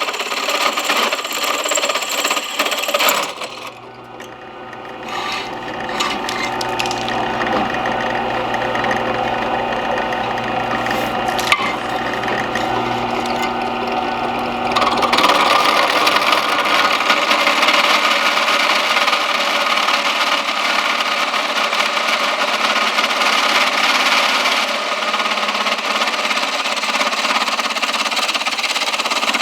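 Power drill boring holes into timber for the hinge bolts, its motor running under load as the bit cuts through the wood. It eases off briefly about three seconds in, then runs louder from about fifteen seconds on.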